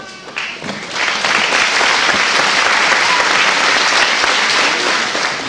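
Audience applauding, starting about a second in and fading near the end.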